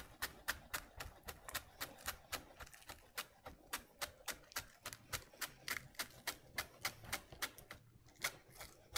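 Chef's knife chopping scallions on an end-grain wooden cutting board: quick, even knocks of the blade on the wood, about five a second, with a brief pause near the end.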